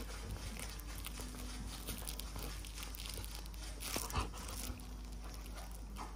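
A goldendoodle playing with a plush toy: scattered rustling and soft clicks as it mouths and chews it, with a louder flurry about four seconds in as it tosses the toy with its head.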